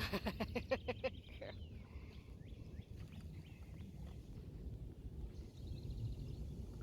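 Outdoor ambience with a steady low rumble. In the first second comes a quick run of about eight sharp repeated calls, and after it scattered bird chirps.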